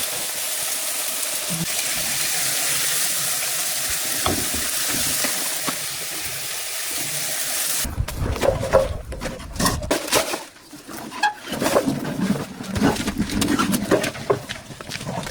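Food frying in a pan: a steady sizzling hiss for about eight seconds that stops abruptly. After it come scattered knocks and rustling.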